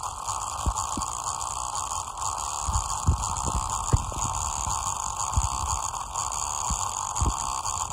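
Damaged loudspeaker driver with a torn cone, overdriven on purpose to blow it, putting out a steady hum-like noise broken by irregular low thumps.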